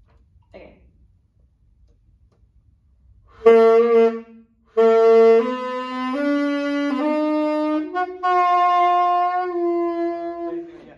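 Saxophone played by a beginner, going up a slow scale of held notes, G, A, B, C and then D with the octave key. The first note starts about three and a half seconds in and breaks off briefly before she starts again. The last note, D, is held the longest.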